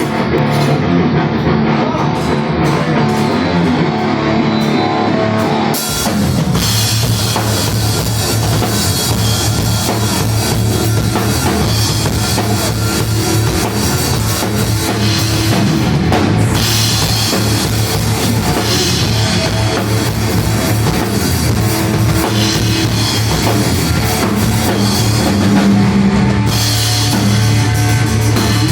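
Rock band playing with drum kit and guitar. A thinner opening gives way about six seconds in to the full band, with cymbals and drums, playing on loud and steady.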